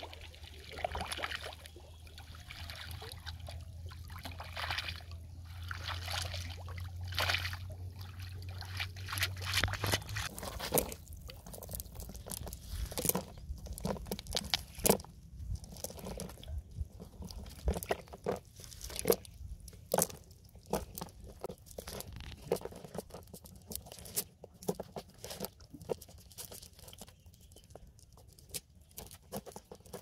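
Water splashing and dripping as a wet cast net is gathered and hauled out of shallow water, then, about ten seconds in, a stream of sharp clicks and crackles as the net mesh is handled and small fish are picked out of it.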